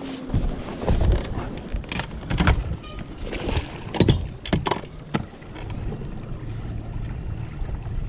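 Wind and water noise on a small boat out on a lake, with irregular knocks and thumps against the boat. A low steady hum sets in about halfway through.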